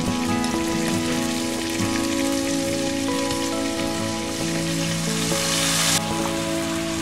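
Chicken pieces frying in hot oil in a wok: a steady crackling sizzle. About five seconds in the sizzle swells louder and hissier as tomato purée goes into the hot oil, then cuts off suddenly.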